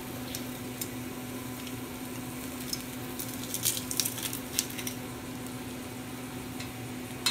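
Diced onion sizzling gently in olive oil in a wok, under a steady low hum. A cluster of sharp clicks and crackles comes about three to four and a half seconds in, while garlic is squeezed through a metal garlic press over the pan.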